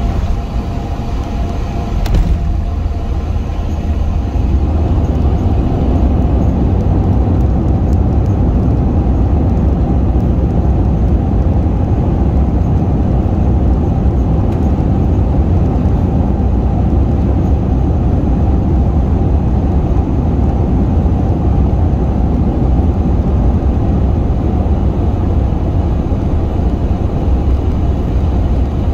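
Airbus A380 landing rollout heard from inside the cabin: a loud, steady low rumble of engines and runway. A short knock comes about two seconds in, then the rumble swells and holds.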